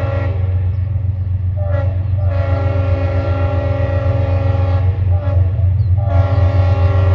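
Freight locomotive air horn sounding a chord in a run of blasts: a brief toot, a long blast of a couple of seconds, another brief toot, then a long blast that carries on, the crossing pattern of a train moving through town. A steady low rumble of the passing train and its diesel locomotives runs underneath.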